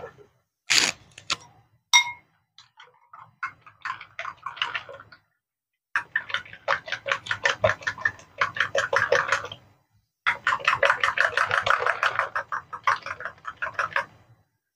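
Metal spoon beating eggs in a ceramic bowl, clinking against the bowl in quick, even strokes of about six a second. The beating comes in two runs with a short break between, after a few separate clinks at the start.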